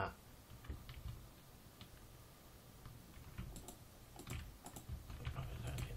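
Faint, scattered clicks of a computer mouse and keyboard, a few separate clicks over a low steady hum.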